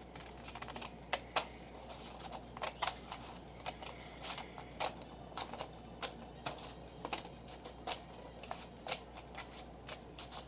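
Scissors snipping a sheet of paper in half along its middle crease: a run of irregular sharp snips, about two or three a second.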